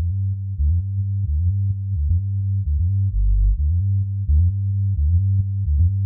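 Electronic background music: a low synthesizer bass line moving between notes a few times a second.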